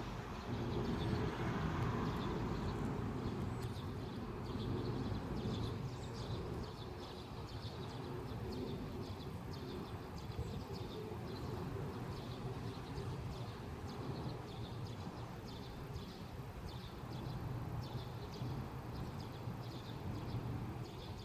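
Outdoor ambience: a steady low rumble with many short, high chirps or ticks throughout.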